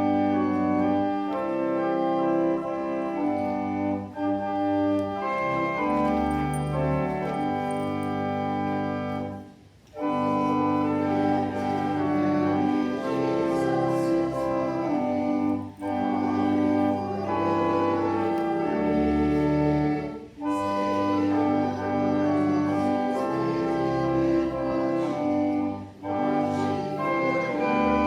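Church organ playing a hymn tune in held chords, with short breaks between phrases.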